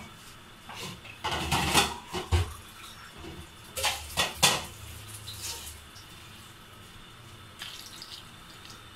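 Kitchenware clattering in a few short bursts, then water poured from a glass into a pan of washed jamun (black plums) near the end.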